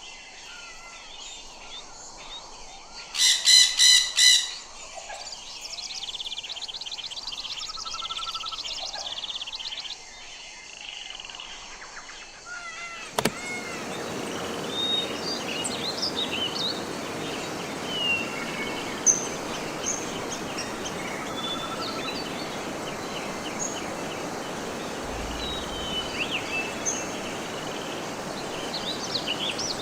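Parrot giving four loud, harsh squawks in quick succession, followed by softer chattering chirps. About 13 seconds in the sound cuts abruptly to a steady background hiss with scattered short bird chirps.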